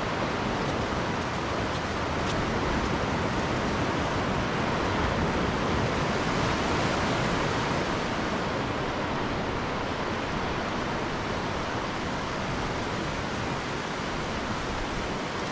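Steady rushing shore ambience of wind and distant surf, swelling a little for a few seconds in the middle.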